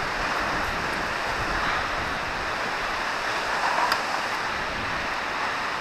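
Steady wind noise on the microphone and water lapping against the hull of a drifting boat in a stiff wind, with a faint click about four seconds in.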